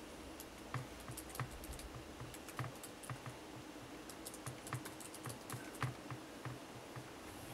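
Typing on the Google Chromebook Pixel's laptop keyboard: a quiet run of irregular key clicks.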